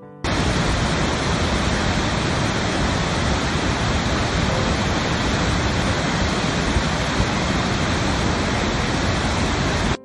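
Large waterfall crashing, a steady full rush of falling water that starts suddenly just after the start and cuts off sharply at the end.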